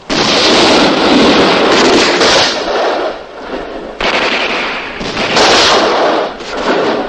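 Battle sounds of dense, rapid gunfire. They start abruptly, ease off about three seconds in, then come back loud and sudden about four seconds in before fading.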